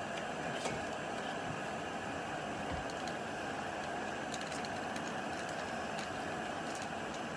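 Planet X Jobsworth X2 integrated canister stove's gas burner running steadily under its pot of water, a continuous even hiss, with a few faint ticks here and there.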